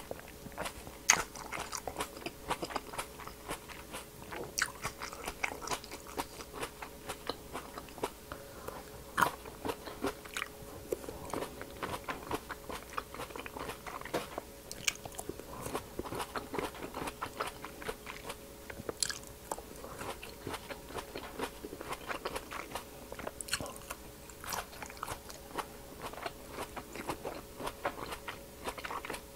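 Close-miked biting and chewing of large, firm green grapes (apple grapes): a steady run of crisp crunches and small wet clicks as each grape is bitten through and chewed.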